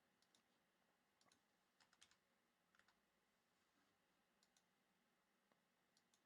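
Faint computer mouse clicks, single and double, every second or so, over near silence, as a list randomizer's button is clicked repeatedly.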